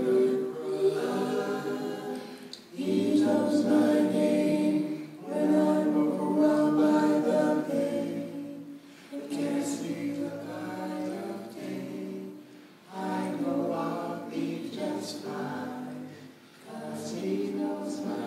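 A small mixed group of adult voices singing a cappella in harmony, in sustained phrases a few seconds long with short breaks for breath between them.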